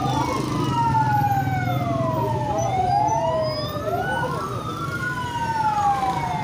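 Two emergency-vehicle sirens wailing out of step, each rising and falling slowly over a few seconds, over a low steady engine hum.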